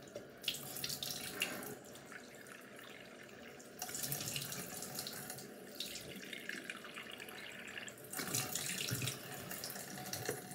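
Bathroom sink faucet running, with splashing as hands work under the stream. The water grows louder about four seconds in and again near the end.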